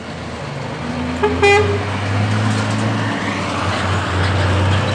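Scania truck pulling a loaded car-carrier trailer passes close by, its diesel engine droning louder as it nears. About a second and a half in, a horn sounds one short toot.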